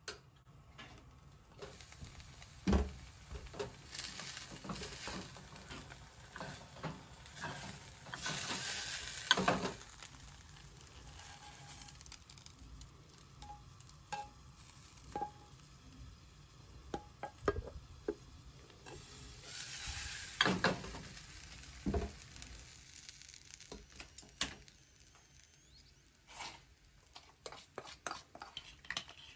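Shredded-potato cake sizzling in a frying pan, with the clatter of the pan and its glass lid as the cake is turned out onto the lid and slid back in. There are a few sharp knocks, two louder spells of sizzling, and light ticks near the end.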